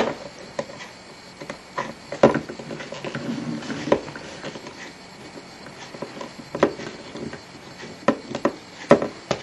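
Precision screwdriver backing tiny screws out of a mobile phone's plastic housing: soft scraping with a handful of small, separate clicks and ticks from the tool and screws.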